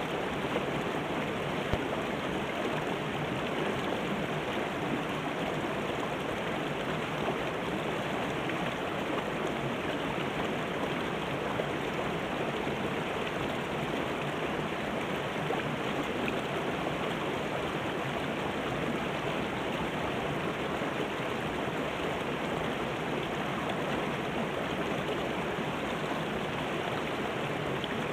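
Shallow river rushing and splashing over rocks and small rapids between boulders, a steady, unbroken rush of water.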